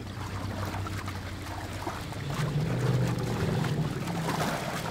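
Elephants in a muddy water pool, with water and mud sloshing and splashing, over a low, steady hum that swells in the middle.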